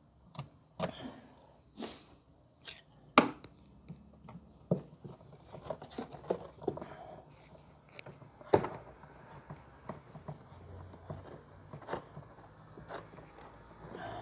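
Irregular clicks and knocks of a nut driver and hands working on the screws of a washing machine's drain pump, with two louder knocks about three seconds and eight and a half seconds in.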